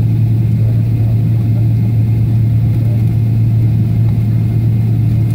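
Jet airliner's engines at low taxi power, heard inside the cabin as a steady low drone with a constant hum.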